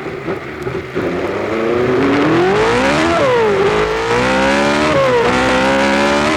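BRM V8 Formula One engine heard from on board, accelerating hard and shifting up through the gears: the pitch climbs, drops sharply at an upshift about three seconds in, dips again at another shift near five seconds, and climbs again each time.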